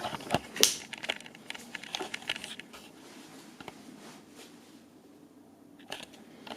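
Handling noise: a flurry of crinkling, rustling and sharp clicks for the first few seconds, loudest about half a second in, then a couple of softer clicks near the end over a faint steady hum.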